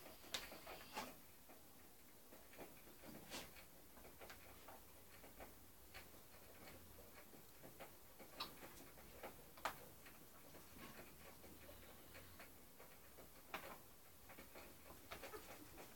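Near silence with faint, irregular clicks and ticks scattered through it.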